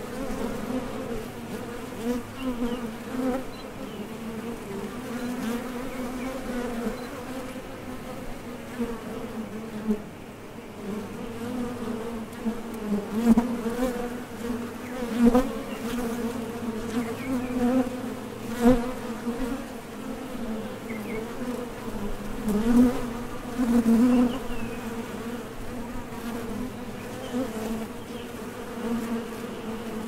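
Many honey bees buzzing at a hive entrance as they take off and land: a steady, wavering drone that swells louder several times.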